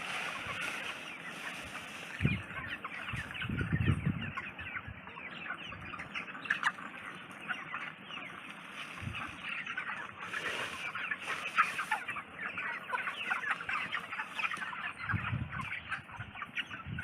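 A large flock of chickens in a poultry shed calling, with many short overlapping calls running on without a break. A few low thumps or rumbles come through about two seconds in, around four seconds, near nine seconds and near the end.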